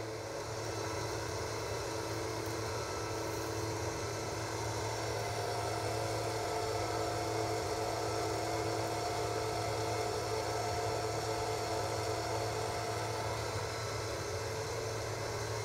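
Litter-Robot automatic self-cleaning litter box running its cleaning cycle: a steady electric motor hum and whir.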